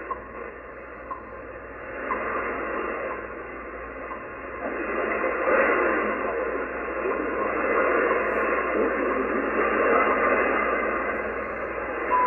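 WWV time signal from Colorado on 25 MHz shortwave, received in AM on a Yaesu FTdx10 transceiver. Short ticks once a second sit under static that swells and fades, a weak sky-wave signal. A faint voice announcement is buried in the noise from about five seconds in, and the steady 1000 Hz minute tone begins right at the end.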